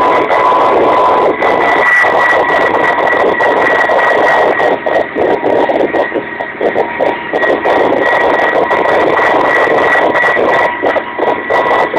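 Kamov Ka-26 helicopter in flight, heard loud and steady from inside the cabin: its two radial piston engines and coaxial rotors, with a steady high whine.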